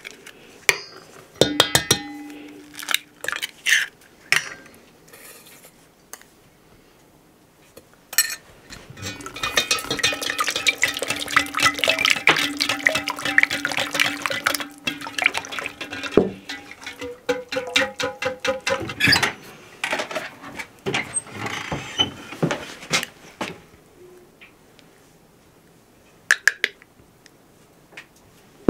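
Eggs cracked and opened over an enamel pot, a few sharp clicks, then a silicone whisk beating them fast in the pot: a dense run of quick clicks and scrapes against the enamel, lasting about fourteen seconds before it stops.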